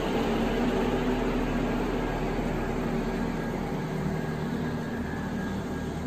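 Wobbling ceiling fan running on a double downrod: a steady whirring hum over a low rumble, slowly getting quieter.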